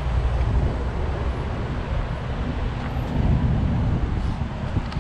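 Road traffic going past: a steady, continuous rumble.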